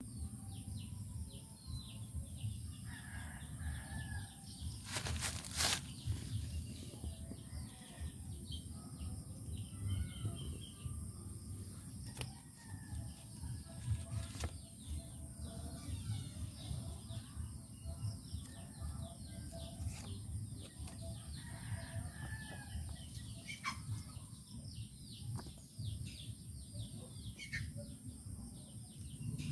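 Outdoor ambience: birds chirping and calling now and then over a constant low rumble of handling and rustling, with a faint steady high-pitched tone. Two sharp clicks come about five seconds in.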